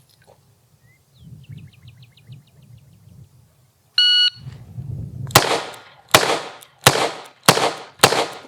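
A shot timer beeps once, then a 3-inch Colt Python revolver fires six rounds of .357 Magnum in quick succession, a little under a second apart.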